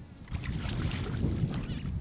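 Wind buffeting the microphone with a gusty low rumble, and an irregular higher-pitched noise over it from about a third of a second in.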